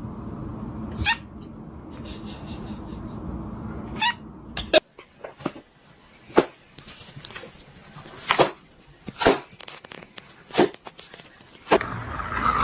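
A cat meowing twice, each call rising in pitch. These are followed by a string of sharp, separate taps or knocks, roughly one a second.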